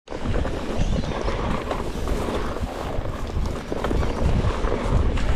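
Wind buffeting the microphone: a gusty, uneven low rumble over a steady rushing hiss.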